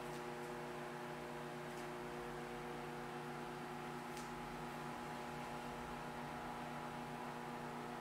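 Steady electrical hum of a running microwave oven, heard from several feet away, with a couple of faint ticks.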